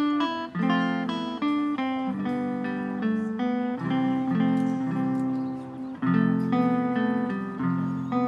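Live instrumental Americana music led by an archtop guitar picking chords and melody. Deeper upright bass notes fill out the low end from about four seconds in.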